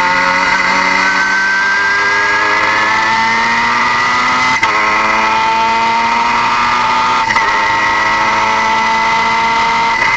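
Car engine under load, its pitch climbing slowly and steadily. There is a short break and a shift in pitch twice, about four and a half and seven seconds in, like gear changes.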